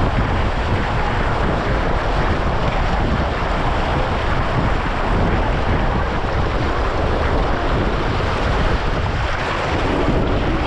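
Rushing water on a water slide, a steady loud wash with wind buffeting the microphone.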